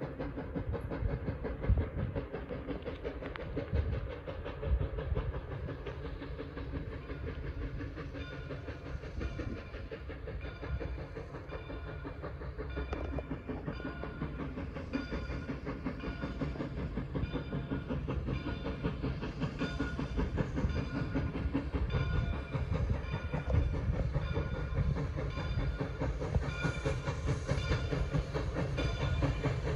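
Steam excursion train hauled by 2-8-0 steam locomotive 3716 rolling by, its wheels clicking over the rail joints over a steady rumble, growing louder near the end.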